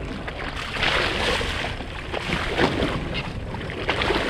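Sea water splashing and sloshing against a boat's hull, with wind buffeting the microphone.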